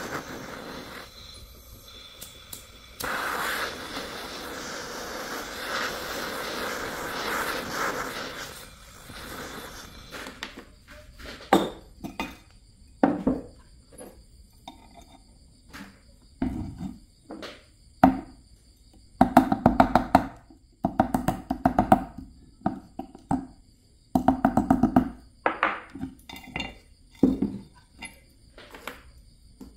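Handheld gas torch flame hissing steadily as it heats a thin metal rod for about the first nine seconds. Then a hammer strikes the rod against concrete: single knocks at first, then quick runs of ringing metallic taps.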